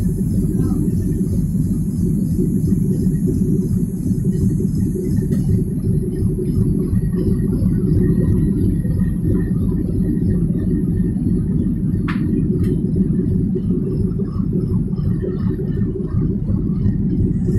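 Steady low rumble of a standing locomotive's running machinery, heard close up at the coupling, with a single sharp metallic click about two-thirds of the way through.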